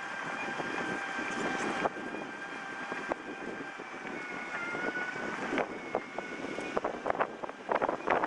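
City street ambience: steady traffic noise with wind on the microphone. A few faint steady tones sit in the background, and scattered sharp clicks come more often near the end.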